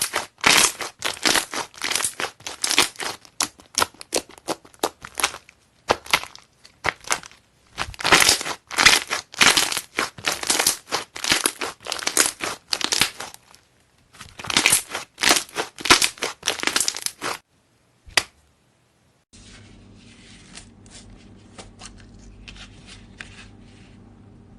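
Slime being squeezed and pressed by hand close to the microphone, giving bursts of dense crackling and popping. After a short pause near the end, quieter faint clicks and squishes come over a steady low hum.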